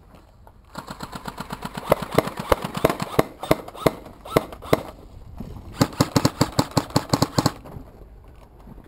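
Airsoft guns firing in rapid automatic volleys: a long string of sharp cracks, about eight a second, lasting some four seconds, then a second volley about a second and a half long.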